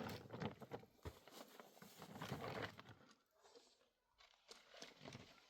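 Faint, irregular rustling with small clicks and knocks, like things being handled.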